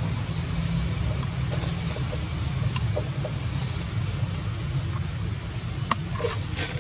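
Steady low rumble of wind buffeting the microphone, with a few faint sharp clicks and brief faint chirps near the end.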